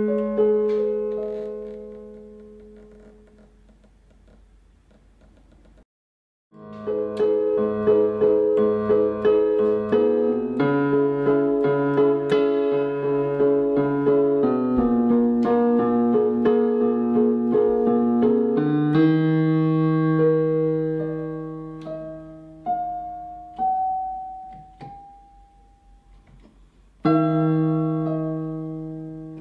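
Slow piano music. A chord rings out and fades almost to nothing, there is a brief gap of silence about six seconds in, then the playing resumes with fuller chords. It thins to a few single high notes, and a new chord is struck near the end.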